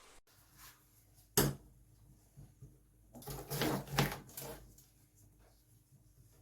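Kitchen handling sounds as pears are prepared: one sharp knock about a second and a half in, then a second or so of knocks and scrapes.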